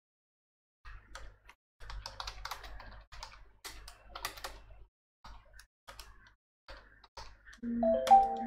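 Typing on a computer keyboard: irregular runs of key clicks with short pauses, starting about a second in. A short humming sound comes near the end.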